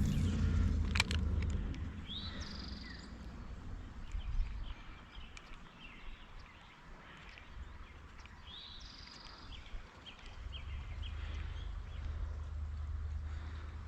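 A songbird sings a short phrase of curved, whistled high notes, about two and a half seconds in and again around nine seconds, over a low outdoor rumble. A few sharp clicks and a louder rumble come at the start.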